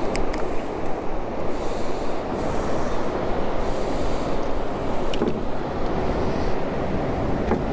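Steady rush of wind and surf on the microphone, with a few sharp clicks as rusty shears snip through a blue crab's shell.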